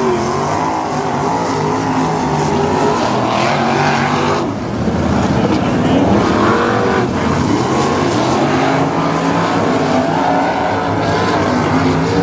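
Several 305 winged sprint cars' V8 engines running together, their pitch rising and falling as they rev up and down.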